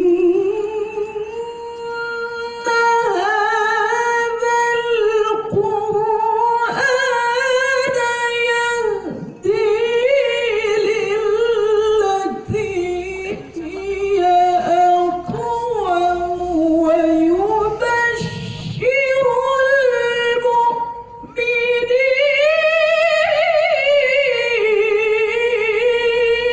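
A woman reciting the Quran in the melodic tilawah style, amplified through a microphone and loudspeakers: long held notes with wavering, ornamented melisma, sung in phrases separated by short pauses for breath.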